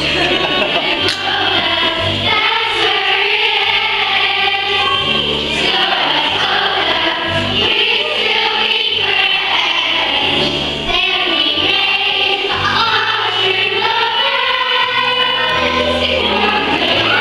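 A large group of children singing together in chorus over accompanying music with a low line of notes that changes about once a second.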